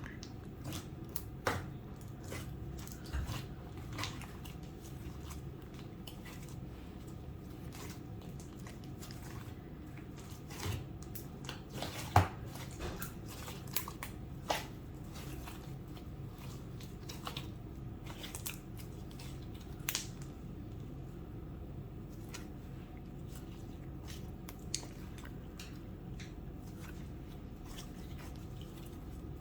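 Slime being squished, stretched and folded by hand, giving scattered small clicks and pops over a steady low hum. The sharpest pop comes about twelve seconds in.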